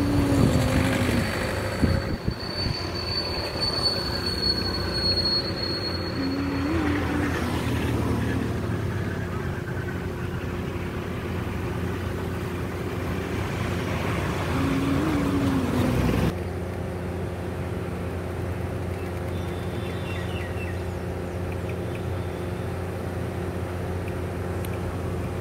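A steady mechanical hum with a low, even drone. It drops suddenly in level about two-thirds of the way through.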